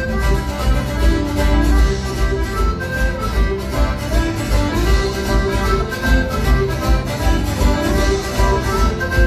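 A Celtic folk-rock band plays live: accordion and guitars over a steady, driving low beat, loud in the hall.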